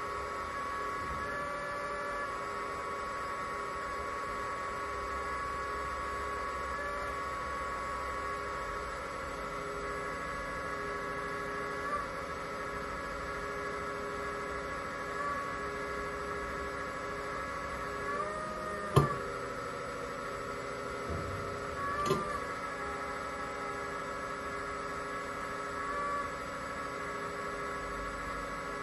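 Hydraulic pump of an RC model Komatsu PC360 excavator running with a steady whine, its pitch dipping briefly several times as the arm and bucket move under load. A sharp click comes about two-thirds of the way through, the loudest sound, and a softer one follows about three seconds later.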